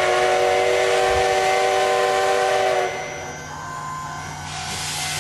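Train-whistle sound effect: a chord of several steady tones held for about three seconds and cut off suddenly, followed by a steam hiss that grows louder near the end.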